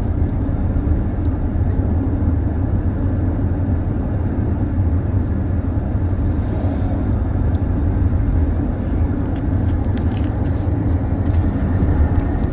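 Steady car cabin noise while driving: engine and road rumble heard from inside the closed car, with a few faint ticks.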